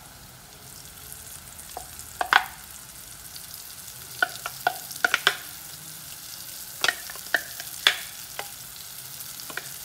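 Chopped shallots and garlic frying in coconut oil in an earthenware pot under a lump of freshly added ground curry-leaf paste: a steady sizzle with scattered sharp pops.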